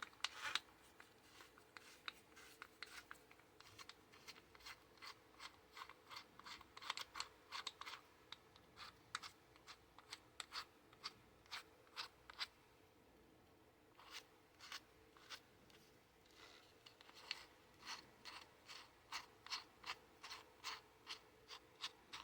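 Faint run of small clicks, two or three a second with a short pause midway, from a cordless drill's keyless chuck being twisted by hand.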